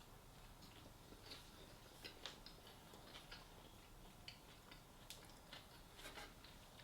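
Near silence broken by faint, irregular clicks and small ticks, the quiet mouth and handling noises of someone eating.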